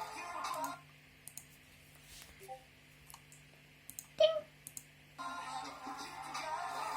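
A few scattered sharp clicks over low background sound, with one short, louder sound about four seconds in.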